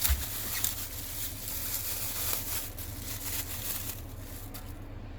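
Rustling and light handling knocks as a small engine carburettor is picked over by hand, with a low thump about a fraction of a second in, over a low steady hum.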